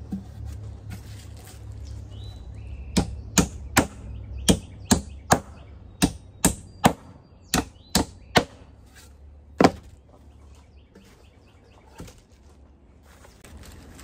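Claw hammer driving nails into the finger-jointed corners of a wooden beehive super: about a dozen sharp strikes, mostly in quick groups of three, with the last and loudest near ten seconds in.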